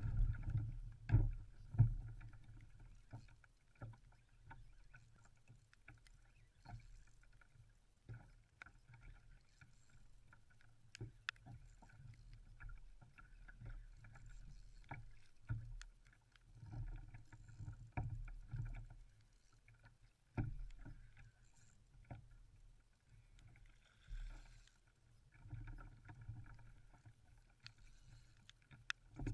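Choppy water slapping irregularly against a fishing kayak's hull, heard as low thumps and swells, the loudest about a second and two seconds in. Scattered sharp clicks and knocks run through it.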